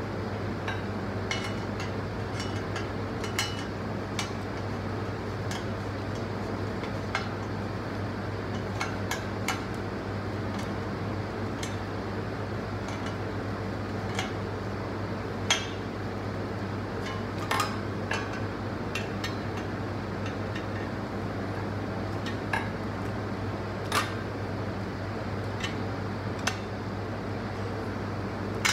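Hollow white metal tubes of a laundry organizer frame clinking and tapping against each other as they are handled and fitted together, in scattered sharp clicks, a few louder than the rest. A steady low hum runs underneath.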